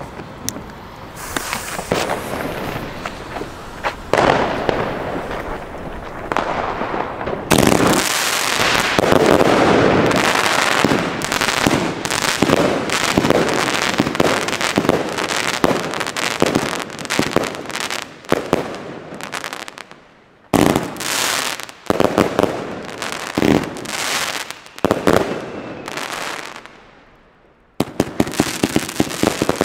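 A 61-shot, 25 mm firework compound cake (Pyroprodukt FYRE) firing: a long run of launch thumps and bursts with dense crackling, pausing briefly twice before a last fast volley of cracks near the end.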